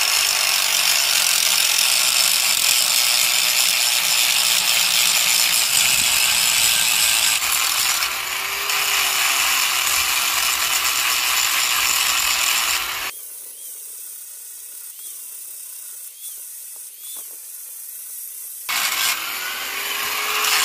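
Electric angle grinder with a sanding disc running against a three-blade metal boat propeller blade, a steady grinding noise as the blade surface is cleaned. The grinding stops about two-thirds of the way through and starts again near the end.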